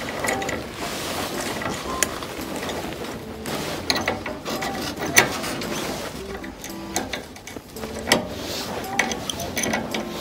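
Metal caster stem being forced into the threaded foot of an industrial sewing machine stand with an adjustable wrench: irregular clicks, knocks and scrapes of the wrench and the stiff threads. The threads are too tight to turn by hand.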